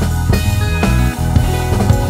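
Background rock music with drums keeping a steady beat.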